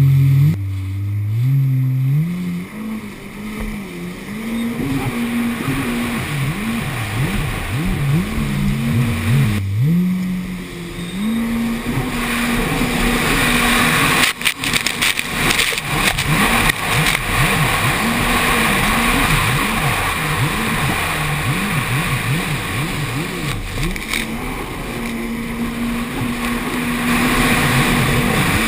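Runabout jet ski engine running under the rider at speed, its pitch rising and falling over and over as the throttle is worked through turns, with rushing wind and water spray. About a second in the engine drops off and climbs again, and a few sharp knocks come about halfway through.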